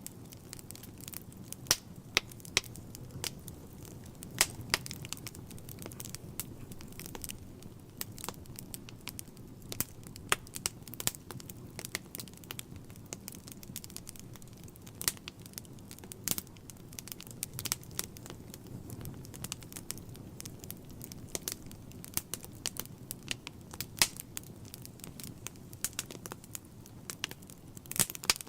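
Wood logs burning in a fireplace, crackling with irregular sharp pops and snaps, a few of them loud, over a low steady rumble of the flames.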